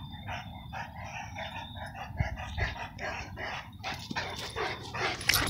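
A Saint Bernard dog giving a run of short, high-pitched calls, several a second. Sharper clicking noise joins near the end.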